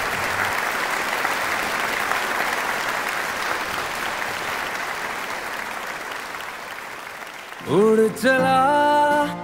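Applause, a steady clapping that slowly fades over about seven seconds. Near the end a Hindi song comes in loudly, with a voice singing a gliding melody over instruments.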